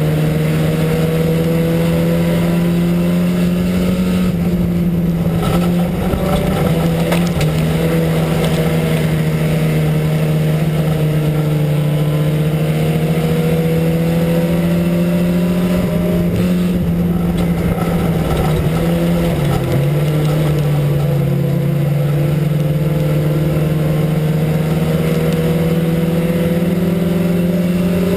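IMCA Sport Compact race car's four-cylinder engine running hard under race load, heard from inside the car, its pitch rising and falling slightly lap by lap and dipping briefly about two-thirds through.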